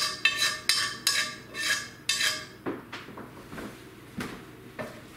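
A metal utensil clinking and scraping against a pan as shredded meat is scooped out of it: a quick run of sharp, ringing clinks, about three or four a second, then a few softer, scattered knocks after about two seconds.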